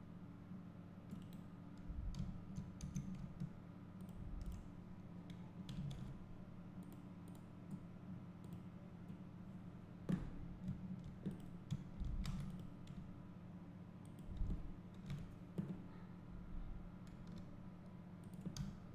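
Faint, irregular clicks of a computer keyboard and mouse, over a low steady hum.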